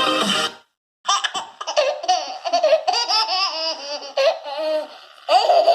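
A played sound clip with music cuts off about half a second in. After a moment's silence a baby laughs: a long run of short, high-pitched laughs and squeals.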